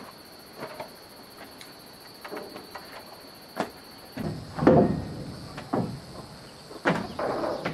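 Scattered knocks, bumps and scraping from manual building work, with a louder burst of scraping just before halfway and another near the end.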